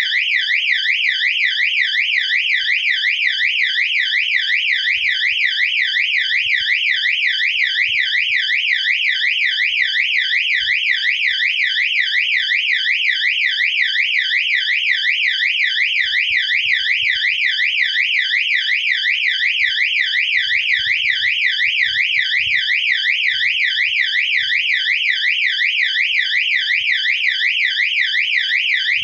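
Fire alarm siren-strobe sounding continuously: a high electronic tone sweeping rapidly up and down several times a second, without a break.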